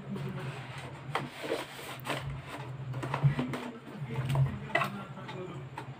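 Cardboard packaging being handled: rustling, scraping and light taps as a corded appliance is drawn out of its box and the box is folded, with a few sharper clicks. A steady low hum sits underneath.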